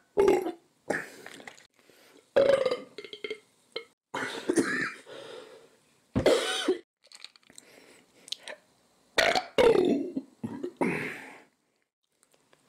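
A man belching loudly again and again: about seven separate burps with short gaps between them, some short and some drawn out for about a second.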